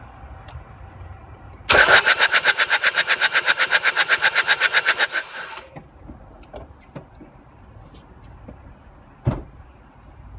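Starter cranking the Ford Transit Custom's 2.2 TDCi diesel for about four seconds with a fast, even pulsing, the engine turning over without firing while the camshafts stay still: the sign of a snapped timing chain. A single knock follows near the end.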